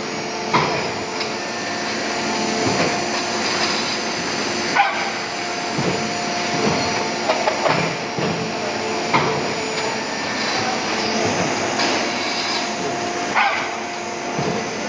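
Dry ice production machine running: a steady mechanical hum with several held tones, broken by short sharp knocks every couple of seconds.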